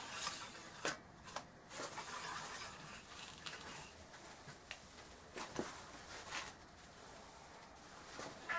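Scattered light clicks, knocks and rubbing from a cleaning rod with a patch being worked in a rifle barrel during bore cleaning.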